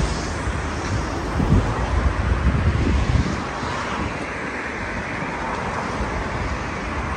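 Street traffic noise: a steady rumble of road traffic, with low gusts of wind buffeting the microphone between about a second and a half and three and a half seconds in.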